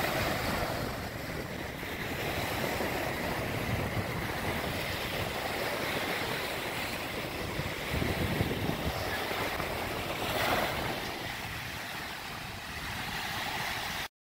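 Small surf waves washing onto a sandy beach, with wind gusting on the microphone. The sound cuts off suddenly near the end.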